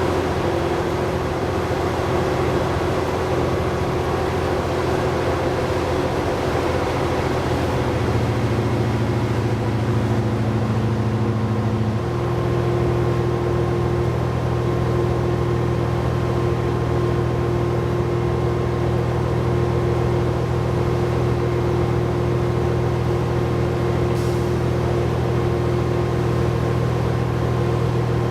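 Articulated diesel bus with a Cummins ISL9 inline-six diesel and Allison automatic transmission, running under way as heard from inside the bus: a steady engine hum over road noise. Its pitch changes about a third of the way in and again shortly after, then holds steady.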